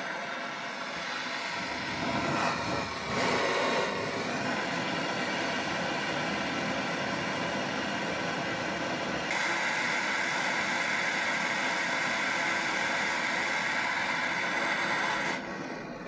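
Handheld gas blowtorch on a canister burning with a steady hiss as its flame heats a washing machine motor's shaft and pulley. The hiss grows sharper about nine seconds in and cuts off at the very end when the torch is shut off.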